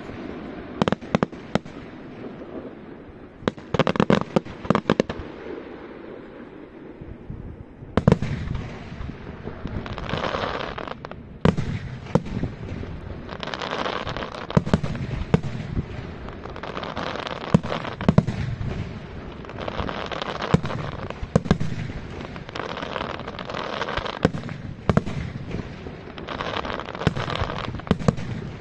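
Aerial firework shells bursting in quick succession: many sharp bangs, close together and uneven in rhythm. From about a third of the way in, stretches of hiss come and go between the bangs.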